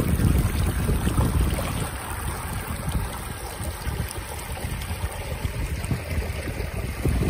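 Muddy floodwater rushing and churning as it flows fast across a flooded field, with wind buffeting the microphone, the gusts heaviest in the first two seconds.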